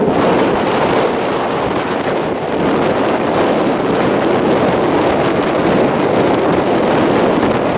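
Wind blowing across the microphone: a loud, steady rushing noise.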